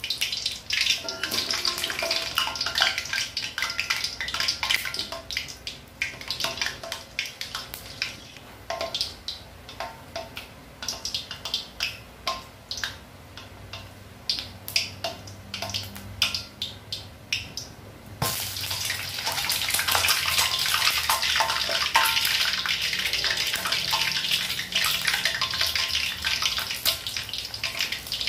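Whole eggs in their shells frying in hot oil: steady sizzling with many sharp pops and crackles. About eighteen seconds in the sizzling abruptly turns louder and denser, as one egg's shell bursts and its white spills into the oil.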